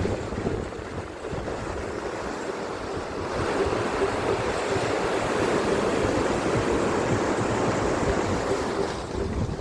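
Ocean surf breaking and washing on a beach, a steady rush that swells louder about three seconds in and eases off near the end, with wind buffeting the microphone.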